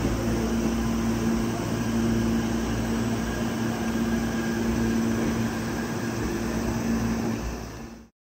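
Hankyu electric train's steady hum: a constant low tone over a rumble and hiss, fading out just before the end.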